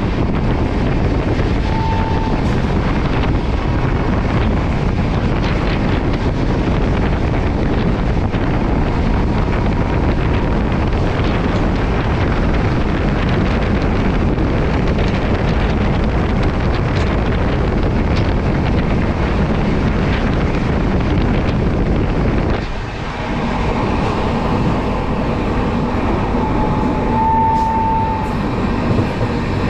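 Steady rumble and rush of a moving passenger train, with wind on the microphone. The sound shifts abruptly about three-quarters of the way through, and a short steady high tone sounds twice, near the start and near the end.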